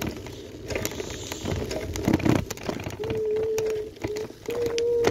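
Bicycle tyres rolling over frosty, gritted tarmac, crackling and pattering as the frost crunches under them. About three seconds in a steady whine joins, breaks off briefly and comes back.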